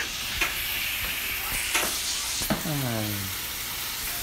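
Food frying in hot oil in a pan: a steady sizzle with small scattered crackles. About two and a half seconds in, a short pitched sound slides down in pitch over it.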